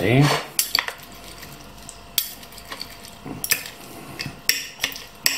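Metal fork and spoon tapping and scraping on a plate while breaking up fried eggs over chips: irregular sharp clinks about once a second, with soft squelching between them.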